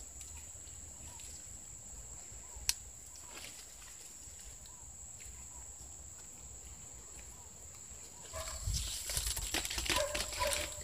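Coconut palm fronds rustling and crackling as they are handled and tied into a bundle, growing much louder about eight seconds in as the bundle is lifted close. A steady high-pitched whine runs underneath, and a few short pitched calls come near the end.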